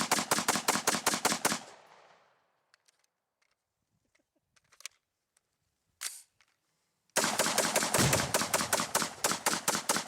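Automatic gunfire in long rapid bursts of about eight shots a second. The first burst stops about a second and a half in. A pause with a few faint clicks and one short report follows, and a second long burst starts about seven seconds in.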